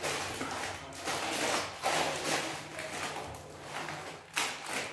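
Plastic grocery packets crinkling and rustling as they are picked up and handled, in a string of short bursts.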